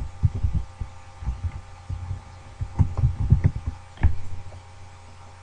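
Computer keyboard keystrokes picked up as dull, irregular thuds in quick clusters, stopping a little after four seconds in, over a steady electrical hum.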